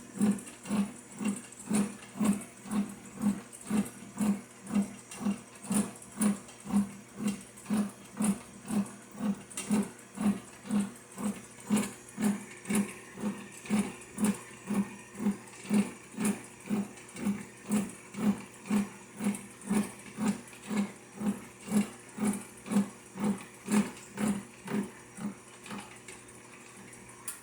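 Atlas metal lathe running under power feed, taking a light cut of a few thousandths, with an even pulsing beat about twice a second that fades away near the end.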